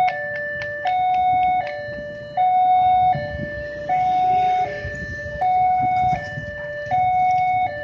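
Railway level crossing warning alarm sounding an electronic two-tone ding-dong, a higher and a lower tone alternating about every three-quarters of a second with the higher tone louder, warning of an approaching train as the barriers close.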